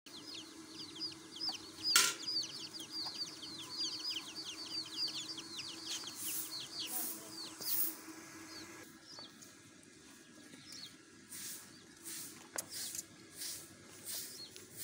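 Small birds chirping rapidly: many short, high, falling notes, several a second, with a sharp click about two seconds in. The chirping fades out around the middle and gives way to a series of short high hissing sounds.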